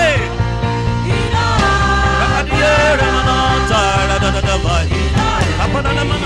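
Live gospel band music from a church choir ministration: a steady drum beat and bass under a sliding, bending lead melody line.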